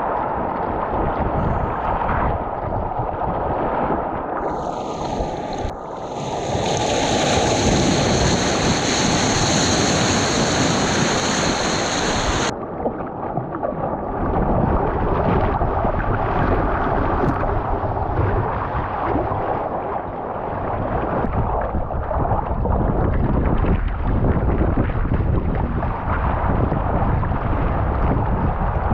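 Ocean surf and rushing water with wind buffeting the microphone. From about four seconds in, a high hiss with a thin whine and a few falling sweeps runs over it for several seconds, then cuts off abruptly.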